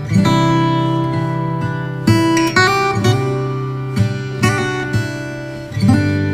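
Background music: acoustic guitar, strummed and plucked chords ringing on, a new chord every half second to a second.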